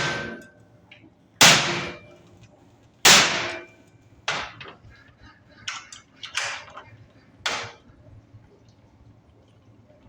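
Hammer blows on metal: a run of sharp strikes, each with a short ringing tail, the first few heaviest and the later ones lighter and closer together.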